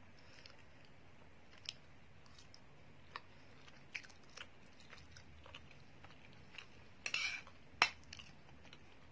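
Person eating Maggi instant noodles: faint chewing and mouth sounds with scattered small clicks. A short louder cluster comes about seven seconds in, followed by a sharp click.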